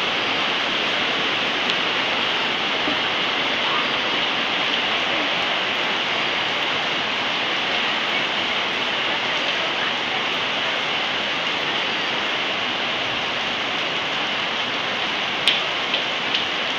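Heavy rain on a roof, with water pouring through leaks onto the floor below: a steady rushing hiss. A couple of sharp knocks near the end.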